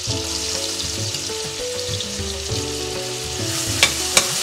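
Chopped onions sizzling as they fry in hot oil and butter in a stainless steel pressure pan, stirred with a spoon, with two sharp clicks of the spoon on the pan near the end. Soft background music plays underneath.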